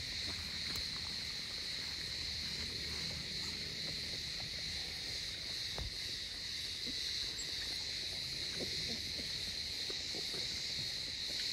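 Crickets chirring steadily in a high-pitched, unbroken chorus, over a low wind rumble on the microphone and a few faint ticks.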